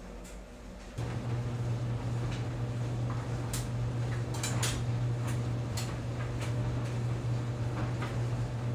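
Clothes dryer running: a steady low motor hum that starts about a second in, with scattered light clinks and knocks from items tumbling in the drum.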